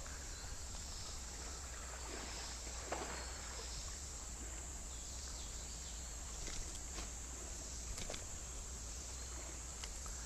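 Steady evening chorus of crickets and other insects, a constant high trill, with a few faint clicks and light splashes from the water.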